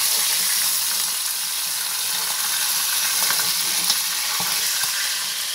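Adobo chicken pieces, marinated and boiled in their soy marinade, frying in hot oil in a frying pan with a steady sizzle. A few light clicks of metal tongs come a little past the middle as the pieces are turned.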